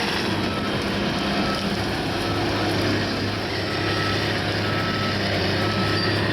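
A heavy machine's engine running steadily, with a reversing alarm beeping about once a second.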